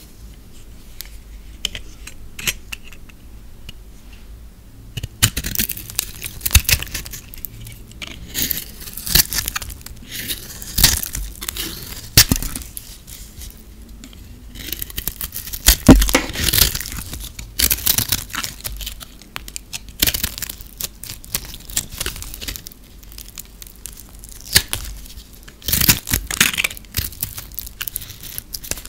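A knife blade shaving and cutting a dry, brittle bar of soap, in repeated strokes of crisp, crackly scraping as flakes snap off. The first few seconds are quieter, with only faint clicks.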